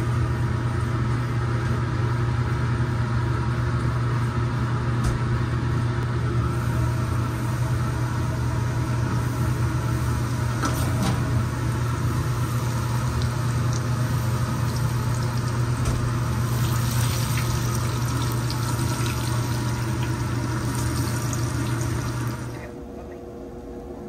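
Catfish fillets frying in a commercial deep fryer: hot oil bubbling and sizzling steadily over a low, even hum of kitchen machinery. The sound drops away suddenly near the end.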